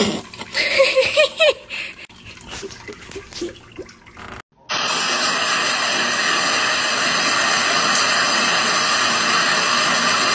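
A few short, wavering pitched sounds about a second in. Then, starting abruptly about halfway, a bathroom tap running steadily with an even rush of water.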